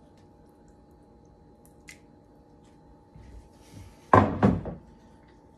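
A short, loud double thump about four seconds in, with faint handling noise before it.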